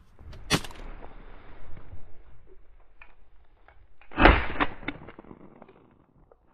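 A sharp knock about half a second in, light clatter, then a louder, heavier thump about four seconds in with a few smaller ticks after it: handling knocks rather than a clear gunshot.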